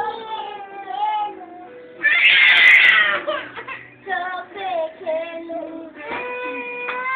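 Young girls singing together in high voices, holding and sliding between notes, with a louder, strained burst of voice about two seconds in.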